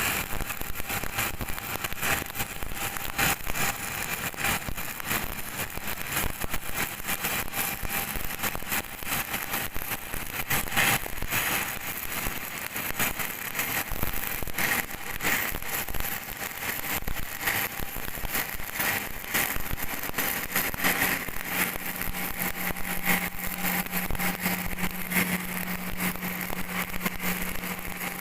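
Electric welding arc crackling and sputtering steadily, with a steady low hum joining about three-quarters of the way through.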